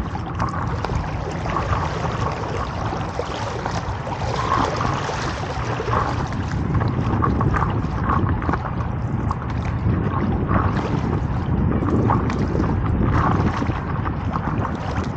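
Wind buffeting the microphone, with water splashing and lapping against the hull of a moving stand-up paddle board.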